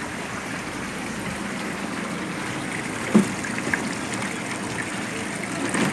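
Water pouring and trickling steadily into a live-fish tank from a supply hose, churning the surface, with a single short knock about three seconds in.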